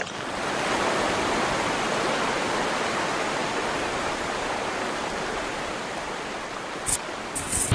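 Rushing river water, a steady even rush. Two short high hisses near the end.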